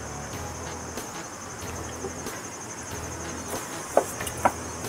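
Insects, crickets or similar, trilling steadily in a high, rapidly pulsing tone. Near the end there are two short, sharp knocks about half a second apart.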